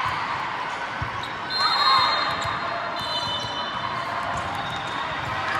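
Indoor court game sounds in a large gym: scattered sharp ball and shoe impacts on a hard floor, voices echoing in the hall, and a high squeal about a second and a half in and again around three seconds in.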